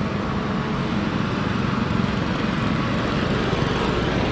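Several riding lawn mowers and garden tractors driving past in a line, their small engines running together in a steady rumble.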